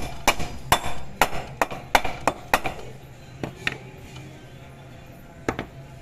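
Sharp metallic taps and clicks on an aluminium scooter gearbox casing and its ball bearings: a quick run of them over the first two and a half seconds, then a few scattered single taps.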